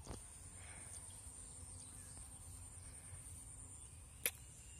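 A steady high-pitched insect drone from the paddy field, with one sharp click about four seconds in.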